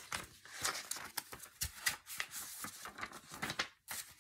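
Pages of a thin paperback picture book rustling and flipping as it is handled and turned, with many quick irregular crackles and soft clicks.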